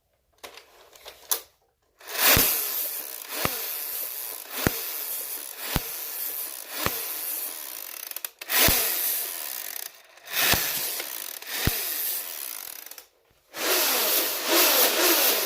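Nerf Rev Reaper dart blaster being worked by hand: a run of sharp plastic clacks, roughly one a second, over a steady rushing noise, with a couple of short pauses.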